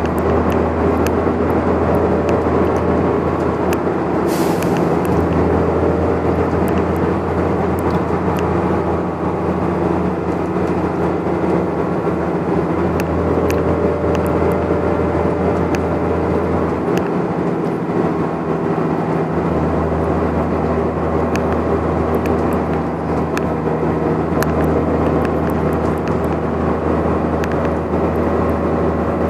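Volvo Olympian double-decker bus at speed, heard from inside the cabin: its diesel engine drones steadily over road noise, with small rattles from the body. A short air hiss comes about four seconds in.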